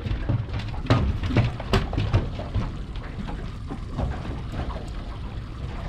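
A few sharp knocks and thuds against the boat as the landed salmon and landing net are handled, the loudest about a second in and just before two seconds, over a low steady rumble.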